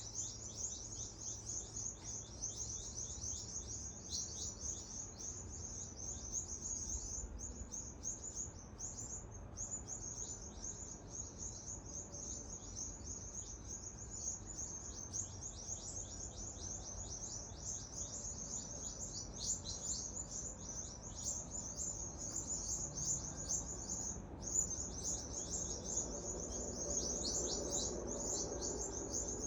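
A flock of small birds chirping loudly and without let-up, a dense stream of quick, high, downward-sweeping chirps with only brief breaks. The uploader puts the commotion down to a rat chasing the birds.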